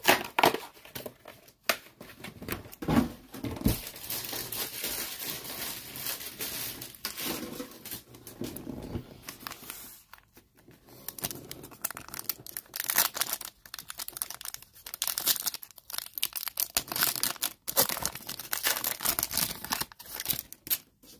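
Foil trading-card pack wrappers crinkling as a stack of packs is handled and torn open, with a short lull about ten seconds in.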